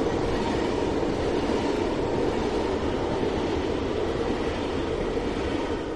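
HO-scale model train running past on its track: a steady rumble of the locomotive's motor and the coaches' wheels rolling on the rails.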